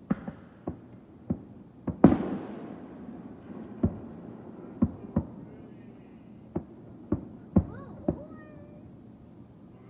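Fireworks going off: a dozen or so sharp bangs at irregular intervals, the loudest about two seconds in, followed by a rumble that slowly fades.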